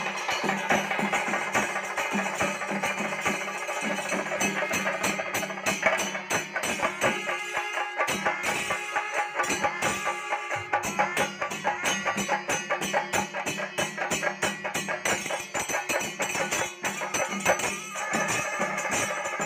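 Kerala temple percussion ensemble: rope-laced chenda drums beaten with sticks in a fast, dense rhythm, with ilathalam hand cymbals clashing and wind instruments holding long notes over it.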